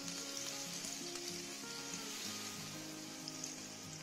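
Rava (semolina) dosa batter sizzling faintly on a hot griddle as it is spread in circles with a ladle, with soft background music.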